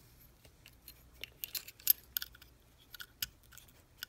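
Light clicks and taps of small metal and plastic parts being handled and seated by hand as the trigger is fitted back onto an air impact wrench housing. The loudest click comes about two seconds in.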